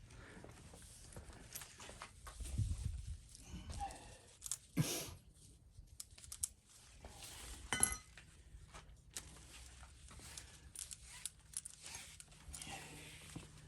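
Scattered handling noises as a tie-down strap and tire plug tools are picked up and set in place: rustling, light knocks and two sharp metallic clinks, at about five and eight seconds in.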